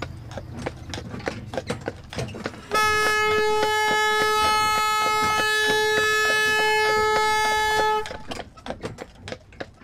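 A horse's hooves clopping on the asphalt as it walks, pulling a cart. About three seconds in, a horn sounds one long, steady note that lasts about five seconds and is the loudest thing heard.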